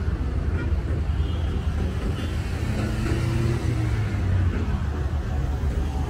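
City street traffic: cars driving past close by with their engines running, over a steady low rumble.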